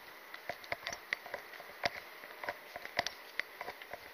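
Footsteps and light taps on the wooden planks of a fishing pier: irregular short clicks, several a second.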